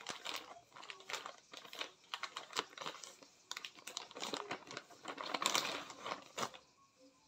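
Clear plastic packaging crinkling and crackling in quick, irregular bursts as hands handle it, dying away shortly before the end.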